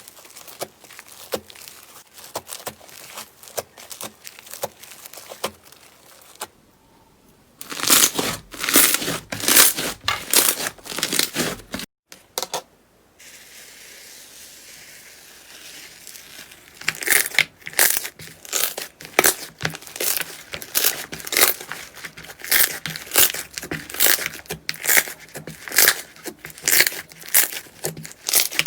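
Slime being squeezed and poked by hand, making a rapid run of sharp crackles and pops. The sound changes abruptly twice, once about a third of the way in and again near the middle.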